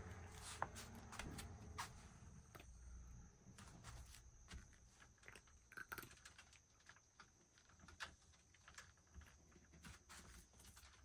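A cat eating from a bowl: faint, irregular little clicks and smacks of chewing.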